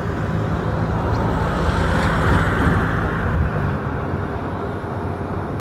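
Steady jet aircraft noise across an airport apron: a continuous rumble over a low engine hum, swelling slightly about two seconds in.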